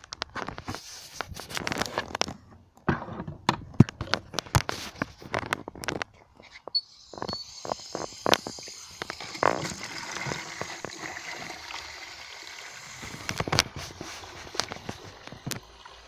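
A run of clattering knocks and handling noises, then, from about seven seconds in, water running steadily into a plastic bucket, with a few more knocks over it.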